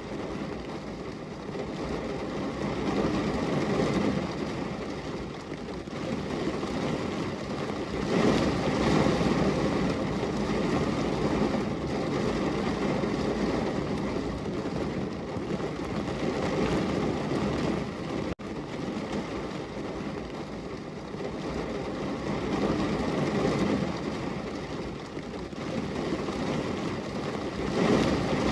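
Heavy rain, a steady downpour on a window, swelling louder and easing off in waves, with one very brief dropout about two-thirds of the way through.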